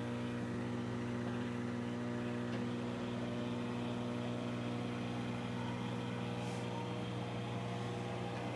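BLACK+DECKER EM720CB7 700-watt countertop microwave oven running: a steady electrical hum.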